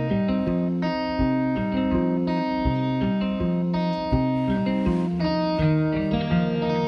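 Instrumental background music: a steady run of pitched notes changing every fraction of a second, with no pause.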